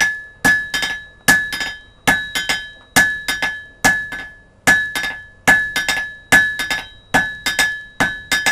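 Blacksmith's hand hammer beating a hot metal rod on an anvil, drawing it out toward square as the rod is turned a quarter turn between blows. The heavy blows come a little more than once a second, each followed by one or two lighter taps, and the anvil rings with a clear high ring.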